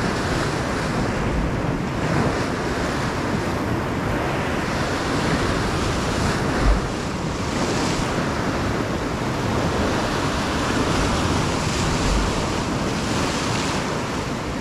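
Rough North Sea surf breaking and washing over shoreline rocks, a steady rushing wash, with wind gusting on the microphone in a few low thumps.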